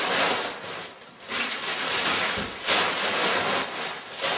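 Crumpled packing paper rustling and crinkling as it is pushed down into a cardboard picture carton. It comes in several long stretches with a short lull about a second in.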